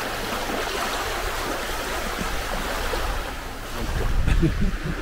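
Small waves lapping and washing in shallow sea water at the shoreline, a steady hiss. Wind rumbles on the microphone and grows louder near the end.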